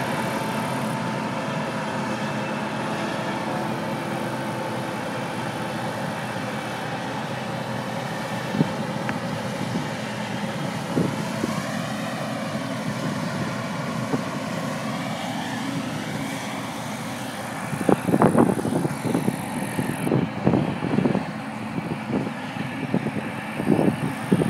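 Claas Lexion 660 combine harvester running steadily while threshing, heard across the field, its note sweeping up and down briefly about halfway through. In the last few seconds, irregular loud rumbles on the microphone take over.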